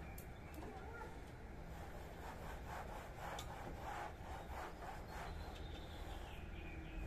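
A cloth pad rubbed hard over a mouldy painted wall in quick back-and-forth strokes, about three a second, strongest a couple of seconds in and fading after about five seconds.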